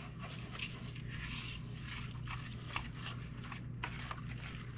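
Silicone-coated wire whisk stirring uncooked rice into creamy soup in a bowl: a run of repeated, uneven scraping and stirring strokes.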